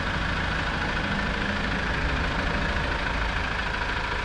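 Mazda CX-30's Skyactiv-D 1.8-litre four-cylinder clean diesel idling steadily, recorded from in front of the car. A clearly audible diesel idle, not truck-loud but plainly louder than a petrol engine.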